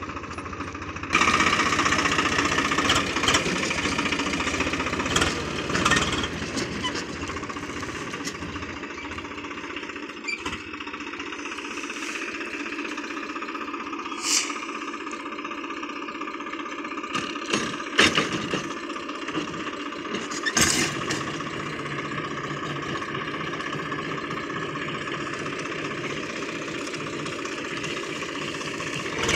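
Mahindra 575 DI tractor's four-cylinder diesel engine running steadily while driving a rear-mounted rotary tiller that churns the soil, with occasional sharp knocks.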